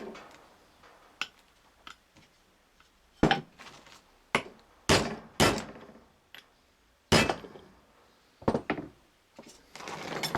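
Irregular sharp metallic knocks and clinks, about ten in all, from tools and steel parts being worked while a universal joint's cross and needle-bearing cups are put together. The loudest knocks come a little after 3 s, around 5 s and just after 7 s.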